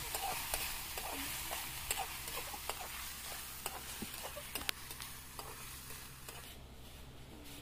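Metal spatula stirring and scraping food frying in oil in a steel wok, with sizzling and scattered clicks of the spatula against the pan. The sizzle fades about six seconds in.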